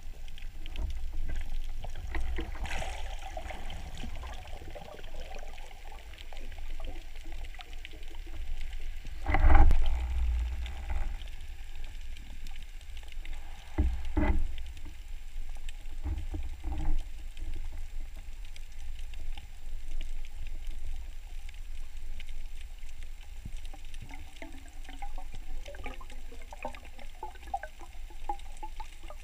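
Muffled underwater sound from a hand-held camera below the sea surface: a steady low rumble of moving water, broken by a few dull knocks, the loudest about nine and a half seconds in and others around fourteen and seventeen seconds.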